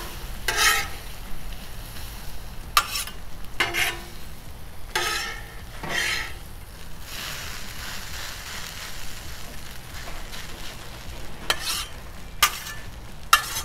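Steel griddle spatulas scraping and chopping across the flat-top of a Blackstone griddle, turning a pile of chorizo, egg and hash browns that sizzles on the hot plate. The scrapes come in irregular strokes, with a pause in the middle where only the sizzle is heard.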